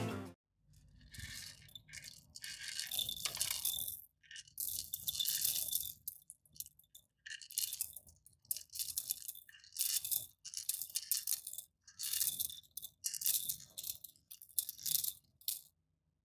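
Corn kernels being crushed in a stone bowl: crisp crunching and grinding strokes with short pauses between them. The first few strokes last a second or two each; later they come shorter and quicker, then stop shortly before the end.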